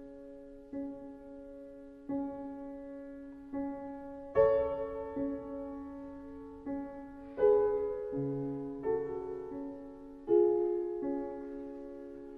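Slow, gentle solo piano music: a single note struck softly over and over, about every second and a half, with louder chords about every three seconds.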